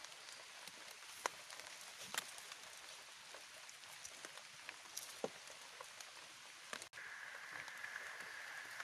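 A knife digging and scraping in forest soil and leaf litter, with scattered small clicks and crackles over a faint hiss. After a cut about seven seconds in, a steady high-pitched hum continues underneath.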